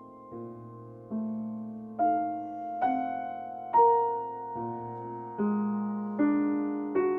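Slow piano music: chords struck about once a second, each left to ring and fade before the next, growing louder from about two seconds in.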